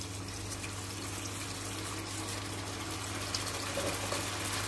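Minced meat sizzling steadily as it fries in oil in a frying pan, with a low steady hum underneath.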